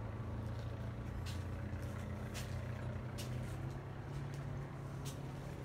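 Steady low hum of an engine running, its pitch stepping up slightly about four seconds in, with a few faint clicks over it.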